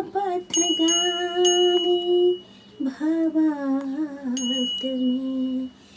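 A woman's voice singing a slow devotional hymn to Jagannath in long held notes, with a small bell ringing over it, struck a few times: three strokes in the first second and a half and another about four and a half seconds in.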